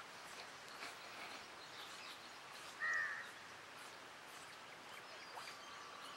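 A single crow caw about three seconds in, short and clearly above a faint outdoor background of scattered small bird chirps. A faint, steady, thin high tone begins near the end.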